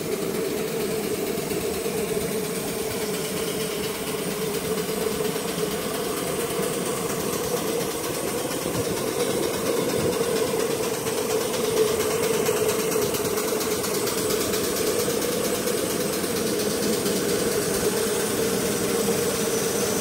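A 7.5-inch-gauge live-steam Connor beam engine, a walking-beam locomotive, running under steam with a steady, even mechanical running sound that grows a little louder around the middle.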